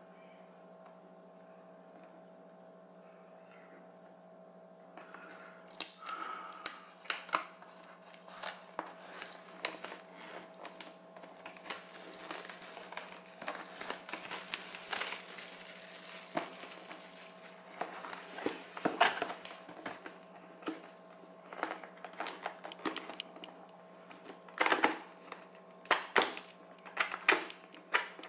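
A UV/LED nail lamp being unboxed: the cardboard box is opened and the packaging rustles and crinkles, with irregular taps and knocks as the lamp is lifted out and set down. This handling noise starts about five seconds in, over a steady low electrical hum.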